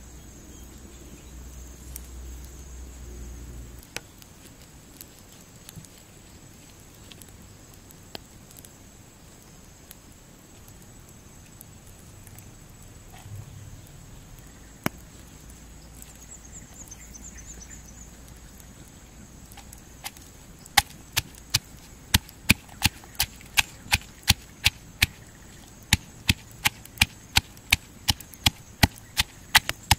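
Stone pestle pounding chillies and garlic in a stone mortar, starting about two thirds of the way in. The strikes are sharp and repeat about twice a second.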